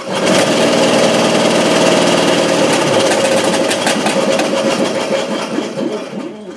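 Ryobi benchtop bandsaw switched on, its motor and wheels running with a rapid clattering knock from the broken, rotted rubber tire on the lower wheel. After about three seconds it winds down and coasts to a stop.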